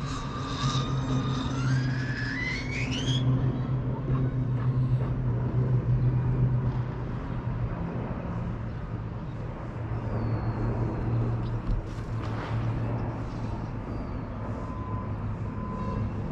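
Steady low hum of aircraft engines from military planes flying past in an air parade, swelling a little about halfway through. A high tone rises in pitch over the first three seconds.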